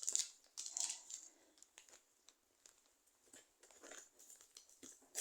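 Faint, intermittent rustling and crinkling of packaging being handled, in short scattered bursts with small clicks between them.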